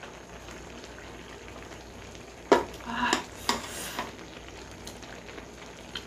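Eating noises: a sharp click about two and a half seconds in, then about a second and a half of noisy slurping of instant noodles from a hot pot, over a faint steady hiss.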